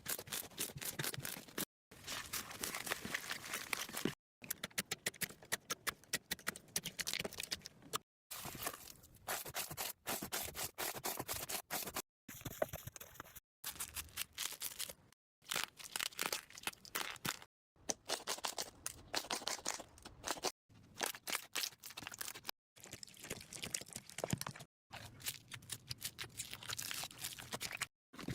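Slime being squeezed and poked by hand, giving dense crackling and popping clicks. It comes as a series of short clips, each a couple of seconds long, with abrupt silent breaks between them.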